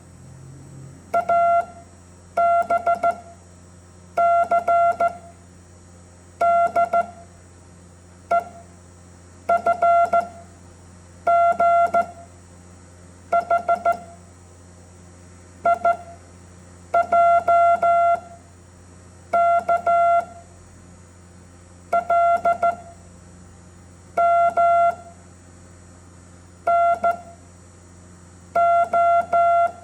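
Morse code tones sounding out the English alphabet letter by letter, beginning with A. Each letter is a short group of beeps and longer tones on one steady pitch, with a group about every two seconds. A faint steady low hum runs underneath.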